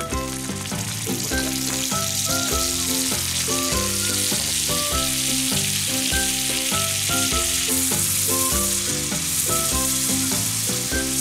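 Food sizzling steadily in hot oil in a cast iron skillet set over a charcoal grill.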